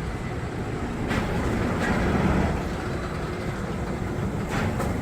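Wind buffeting the microphone: a low rumble that swells and eases in gusts.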